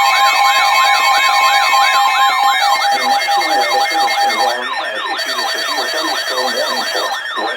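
Electronic emergency-alert siren: a wailing tone sweeping up and down about three times a second, layered with steady alarm tones that drop out about two and a half and four and a half seconds in. A lower sweeping wail joins about three seconds in. Together they make up the alert signal ahead of a severe thunderstorm warning.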